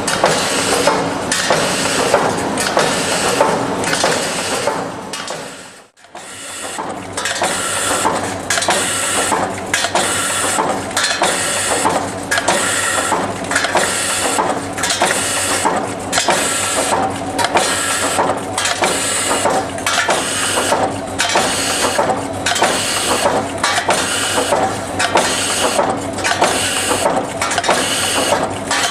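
OMAS P808 TS bucket-handle making machine running: a steady, rhythmic mechanical clatter of strokes, about two a second, with a brief break about six seconds in.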